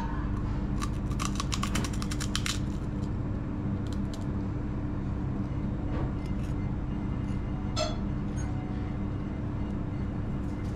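Steady low mechanical hum, like a running engine or machine, with a quick run of clicks about a second in and a few single clicks later.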